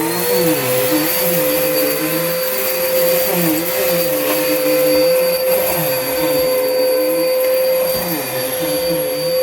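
2013 Bissell Powerforce Helix bagless upright vacuum running at full speed, a steady motor whine with airflow rush, its suction now working again after a fix.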